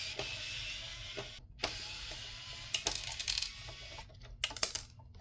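Small electric screwdriver whirring as it drives out the small screws of a plastic radio casing, broken off abruptly twice, with sharp clicks and knocks of plastic parts being handled in the middle and near the end.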